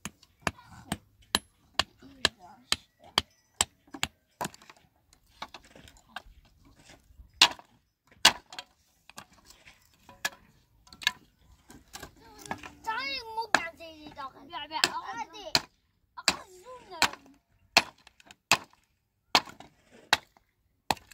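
Hammer blows on wooden pallet boards: a run of sharp, irregular knocks, roughly one or two a second, as the boards are knocked apart.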